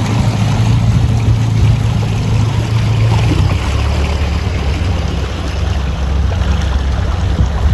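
Motorboat engine running underway with a steady low drone, over water rushing past the hull; the engine note drops lower about three and a half seconds in.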